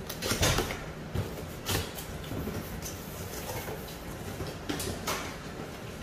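A cardboard box being opened: a knife slitting the tape along the top, and the cardboard flaps creaking and scraping as they are pulled open, in a few short rasps.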